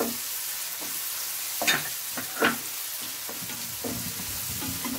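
Chopped onions, green chillies and ginger-garlic paste sizzling in oil in a nonstick pan, stirred and scraped with a wooden spatula while the paste fries off its raw smell. Two louder spatula strokes stand out near the middle over the steady hiss of the frying.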